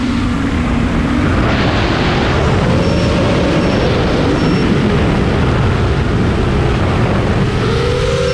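FPV quadcopter's brushless motors (Eachine 2507 1800kv) and propellers whining from the onboard camera. The pitch glides up and down with throttle as the quad dives and skims low over the grass. Heavy wind rush over the camera nearly buries the motor tone in the middle, and three faint short high beeps come about halfway.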